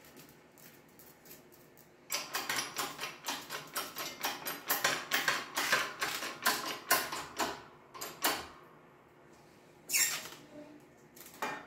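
Hydraulic bottle-jack shop press being hand-pumped under high load as it stamps sheet steel between 3D-printed dies: a rapid run of short sharp strokes for about six seconds, then a couple more near the end.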